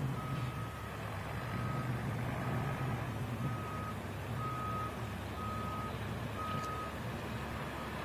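A vehicle's reversing alarm beeping steadily, one flat single-pitch beep about once a second, over a low steady rumble.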